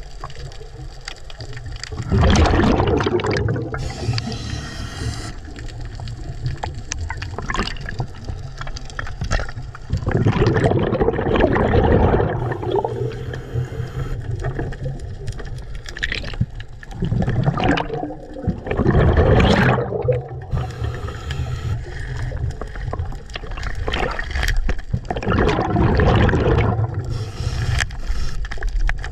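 Underwater water noise, muffled rushing and gurgling over a steady low rumble, swelling into four loud surges about seven to eight seconds apart.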